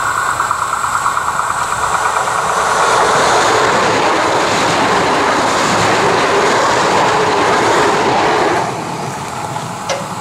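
Electric multiple unit passing close by at speed: a steady high hum from the rails as it approaches, swelling into the rush and clickety-clack of the wheels as the cars go by, then falling away suddenly near the end as the last car passes.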